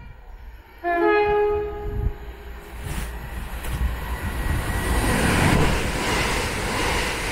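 A Northern Class 333 electric multiple unit sounds a short horn blast about a second in. It then passes through the station at speed, its rushing wheel and air noise building to its loudest about five to six seconds in.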